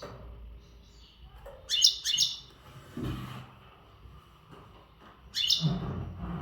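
A male European goldfinch singing in breeding condition, in short twittering phrases. Two quick phrases come about two seconds in and a longer one near the end, with pauses between.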